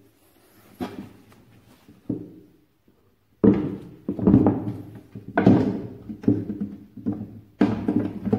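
Plywood section of a rail-type extension bed being pulled out by its fabric strap handle: wood sliding and knocking in a series of loud scraping bursts about once a second, starting a few seconds in after a couple of light knocks.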